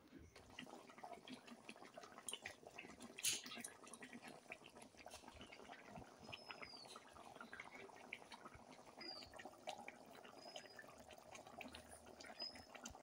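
Bata fish curry in mustard sauce simmering in a wok, a faint steady crackle of small bubbles popping in the gravy. There is one sharp click about three seconds in and a few short high chirps in the second half.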